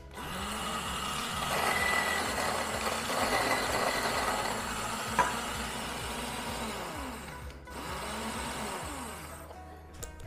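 Bodum Bistro electric burr grinder running and grinding coffee beans at its coarse French press setting, for about nine seconds with a brief dip near the end. A sharp click comes about halfway through.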